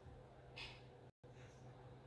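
Faint steady hum of a Hampton Bay Clarkston ceiling fan's motor, with a soft breath-like hiss about half a second in and a brief moment of dead silence just after a second.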